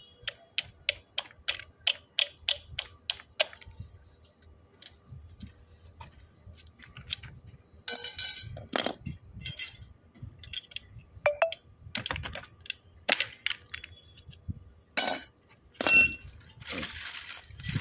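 Hand tools (pliers and a second tool) clicking and tapping on the end of a multistage pump's electric motor: a quick run of sharp metal clicks, about three a second, for the first few seconds, then scattered taps and a few short scrapes, with a longer rustling scrape near the end.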